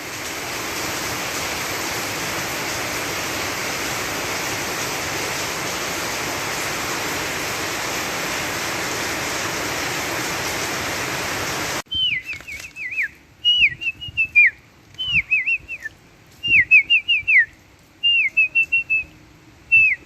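Heavy rain pouring down, a loud steady hiss that cuts off abruptly about twelve seconds in. After that come repeated groups of short, high whistled chirps, each sliding downward in pitch.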